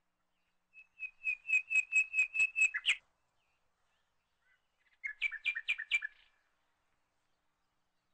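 A bird singing. There is a quick run of repeated high whistled notes, about four or five a second, for about two seconds. A second, shorter run of about five notes follows about two seconds later.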